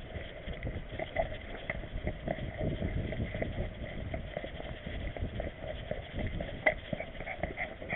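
Movement noise from an action camera carried on a walking Italian greyhound's back: a low rubbing rumble with quick, irregular light clicks of the dog's steps on pavement.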